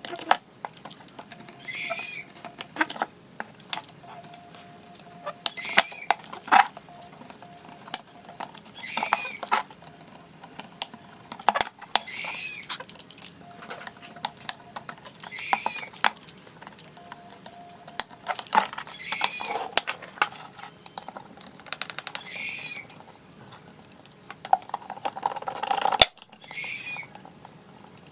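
Sharp clicks and taps of hand tools on an amplifier circuit board during desoldering. A short, arching chirp repeats about every three to four seconds, and there is a brief scraping rustle near the end.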